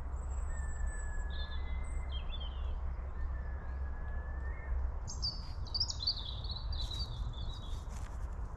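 Woodland birds singing: long thin whistled notes and high chirps, with a brighter song phrase a little past halfway. A steady low rumble lies under it, and a few rustles come near the end.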